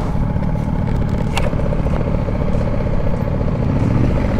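BMW G310 GS single-cylinder motorcycle engine running at low road speed as the bike slows, with a steady rumble and little wind noise. A short sharp click about a second and a half in.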